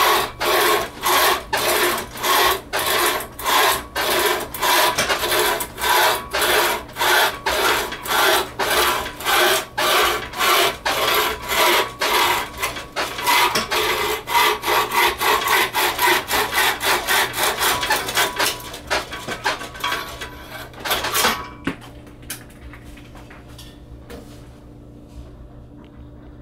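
Homemade wooden bucksaw cutting a branch: steady back-and-forth rasping strokes, a little over two a second, that run together later on and stop about five seconds before the end.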